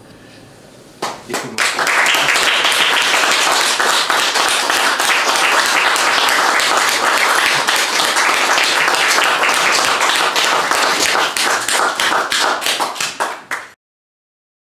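Small audience applauding, with individual claps standing out, starting about a second in; the applause cuts off suddenly near the end.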